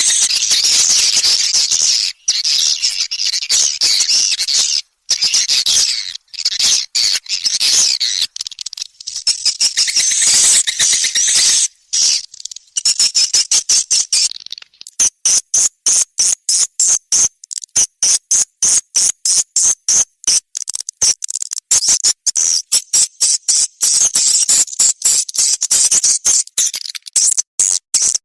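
Swiftlet lure call recording: dense, high-pitched swiftlet twittering and chirping. About halfway through it changes to rapid, evenly spaced trains of clicks over a continuous high chirp. It is the kind of calling sound played in swiftlet houses to draw the birds in to roost and nest.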